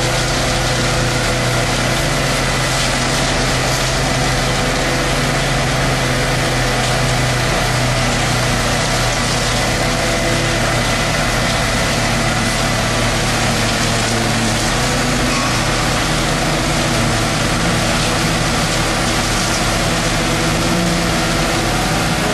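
Engines of a ready-mix concrete truck and a bridge deck finisher running steadily: a constant mechanical drone with several steady tones.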